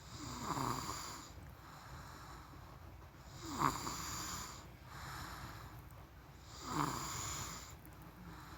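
A person snoring in slow, even breaths: three snores about three seconds apart, each starting sharply, with softer breaths between them.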